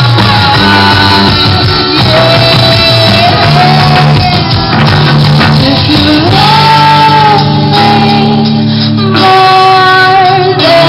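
Live rock band playing: sung vocals with long held notes over electric guitars, drums and keyboard, with a tambourine shaken along.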